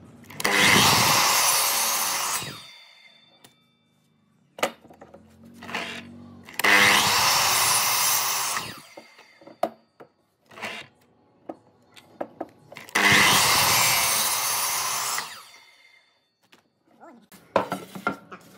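A miter saw makes three crosscuts through wooden blocks, each about two seconds long, with a high whine fading out after each cut as the blade spins down. Short knocks and clicks of the wood being repositioned come between the cuts.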